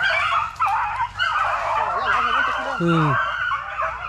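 Pack of beagles baying together in a continuous chorus of overlapping cries, giving tongue while running a rabbit's scent, with one lower falling cry about three seconds in.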